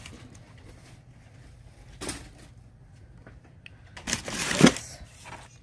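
Loose silver-plated flatware and crumpled packing paper being handled: a brief clink or rustle about two seconds in, then a louder stretch of metal clinking and paper rustling around four seconds in.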